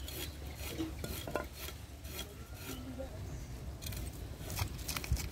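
Knife blade scraping scales off a large carp on a wooden chopping block, in repeated short, rasping strokes.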